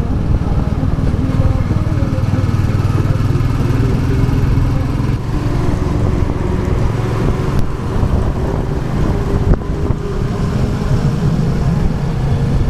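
Royal Enfield Classic 350's single-cylinder engine running while riding, a steady low engine note with small rises and falls in pitch.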